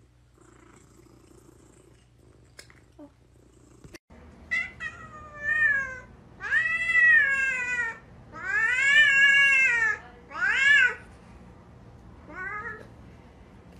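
A cat meowing repeatedly, about seven calls starting some four seconds in, the two longest and loudest drawn-out meows in the middle.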